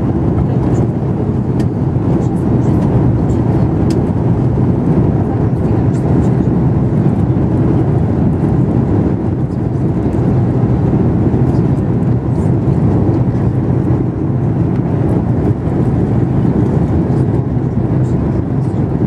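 Steady cabin noise of an Airbus airliner on approach to landing: engine and airflow noise heard from inside the passenger cabin, even and unchanging.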